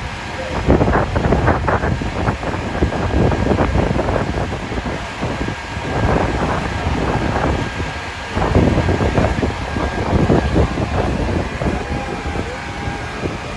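Strong gusty wind buffeting the microphone in uneven surges over a steady low rumble.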